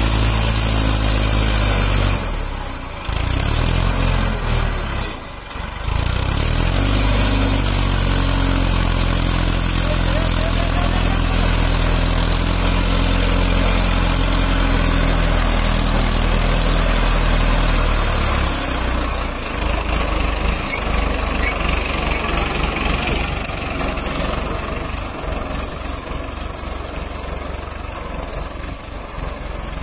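Mahindra Arjun 555 DI tractor's four-cylinder diesel engine running hard under load as the rear wheels spin in mud, with abrupt breaks in the sound in the first few seconds. About two-thirds of the way in the steady engine note gives way to a rougher, noisier sound of the tractor moving.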